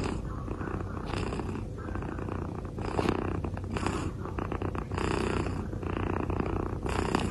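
Domestic cat purring close to the microphone, a low continuous rumble that swells about once a second with each breath.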